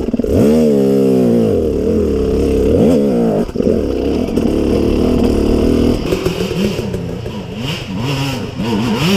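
Enduro dirt bike engine revving hard up and down as it works up a rooty forest hill. About six seconds in it drops to softer, lower warbling revs.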